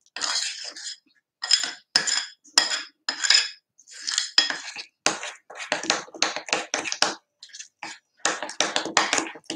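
Metal spoon stirring thick muffin batter in a glass bowl, scraping and clinking against the glass in quick repeated strokes, about two or three a second, pausing briefly twice.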